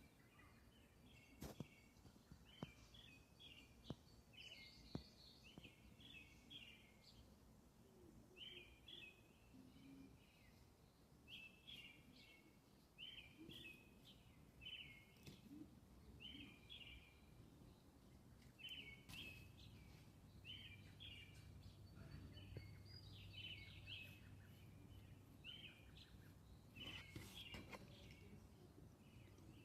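Faint chirping of small birds, short calls repeating about once a second, with a few sharp clicks in the first few seconds.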